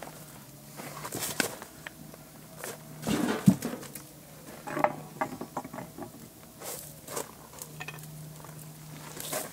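Wood fire burning in a brick barbecue, crackling with scattered sharp pops. About three seconds in comes a louder scrape and knock, as a long metal poker is pushed in among the burning wood.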